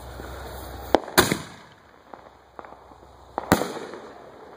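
Consumer aerial fireworks bursting: two sharp bangs in quick succession about a second in, the second the loudest, and another loud bang about three and a half seconds in, with fainter pops and crackle between.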